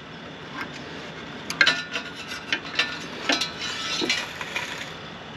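Hand tool clicking and scraping against a small go-kart engine's throttle linkage as the throttle cable is loosened and shifted: scattered light metallic clinks over rubbing, with the sharpest clinks about one and a half and three and a half seconds in.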